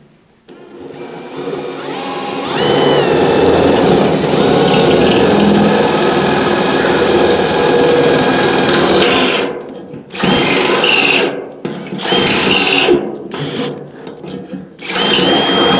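Handheld electric drill boring a hole through the sheet-steel wall of an oil tank. It winds up over the first couple of seconds and runs steadily for about nine seconds, then comes in several short trigger bursts as the bit works through the metal.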